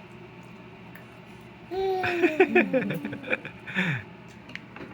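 Baby making funny vocal sounds: a run of sliding, mostly falling squeals and giggle-like noises starting about two seconds in, then one short falling call near the end.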